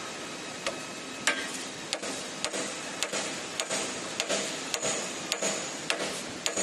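CNC plasma cutting machine at work: sharp clicks about twice a second, evenly spaced, over a steady hiss.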